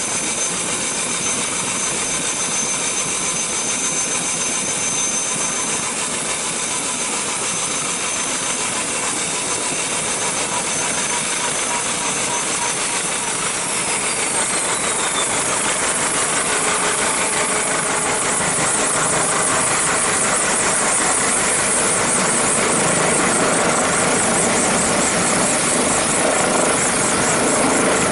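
Airbus H145 helicopter approaching low and coming to a hover. Its steady rotor and turbine noise is joined midway by a whine that falls in pitch, and a fast rotor beat grows louder near the end.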